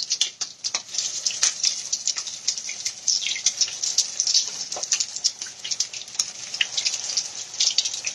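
Salmon frying in a skillet of hot vegetable oil, sizzling with a dense run of sharp little pops and crackles.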